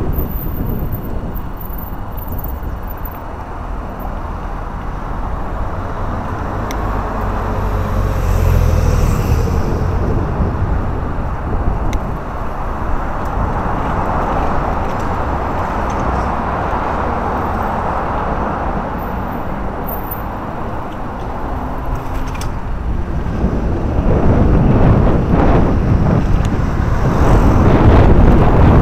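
Road traffic on a busy road close alongside, a steady rumble of cars with a couple of louder swells as vehicles pass, the loudest near the end.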